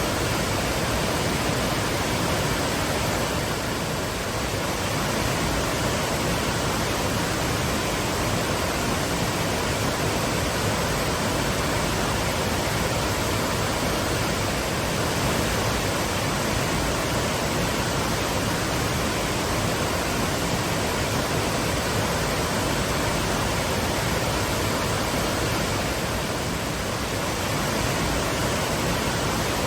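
Twin waterfalls pouring in a steady, unbroken rush of falling water.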